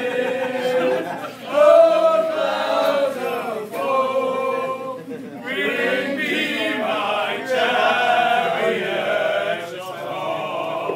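A group of men singing an old pub song together, unaccompanied, in phrases of held notes with short breaks between lines.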